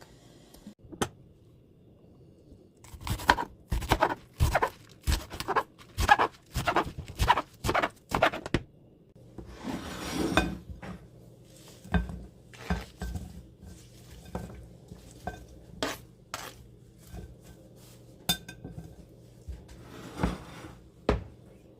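Kitchen dishes, pots and utensils clanking and clinking as they are handled, in a quick run of knocks at first and then scattered clinks. A short rush of noise comes about halfway, and a steady low hum sets in from then on.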